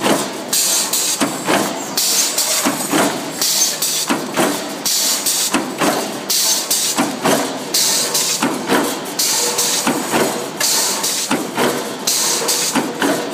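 Automatic stainless steel hinge rolling machine running through its cycle: repeated metal knocks and clanks from the press tooling, with a burst of high hiss every couple of seconds.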